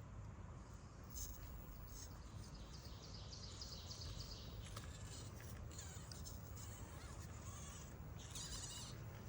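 Wild birds chirping and singing, with short high calls scattered through and a rapid trill near the end, over a low steady background rumble.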